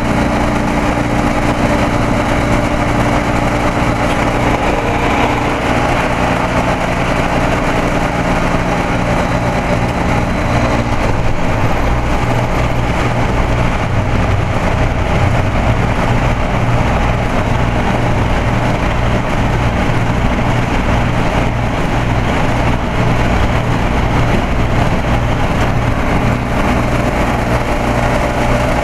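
Carrier TECH2000 central air-conditioner condensing unit running: a steady compressor hum under the rush of the condenser fan. A mid-pitched tone in the hum drops away about eleven seconds in, and the rest carries on unchanged.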